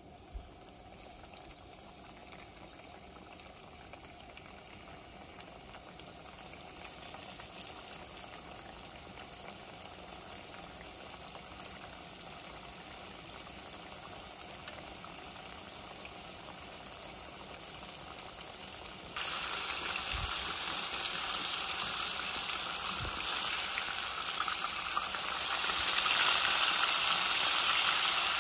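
Breaded walleye fillets frying in hot oil in a pan: a steady sizzle that grows slowly, then turns suddenly much louder about two-thirds of the way through and louder again near the end.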